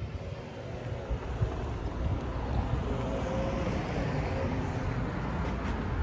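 Wind buffeting the microphone over a steady outdoor rumble, with a faint wavering tone about halfway through.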